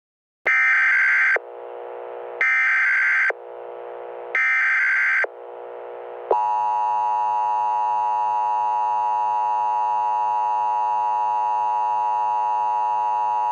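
Emergency Alert System tones: three short, loud, shrill data bursts (the SAME header), each followed by a quieter, lower buzz. About six seconds in comes the long, steady two-tone EAS attention signal, which marks the start of an emergency alert.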